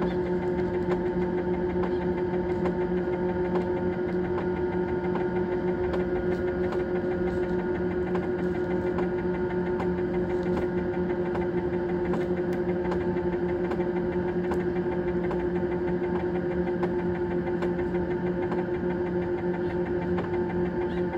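Egg incubator's fan motor running with a steady, unchanging hum.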